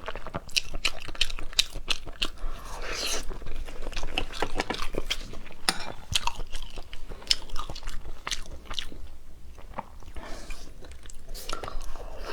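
Close-miked chewing of boiled goose egg: a steady run of sharp, wet mouth clicks and smacks with softer chewing between them.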